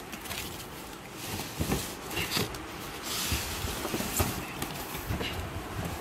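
A cardboard toy box being handled and opened: irregular light knocks, scrapes and rustles of cardboard and packing.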